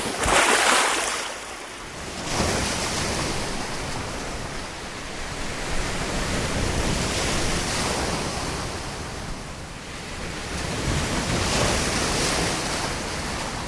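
Sea waves surging and breaking on the shore, the rush swelling and easing every few seconds, with wind buffeting the microphone.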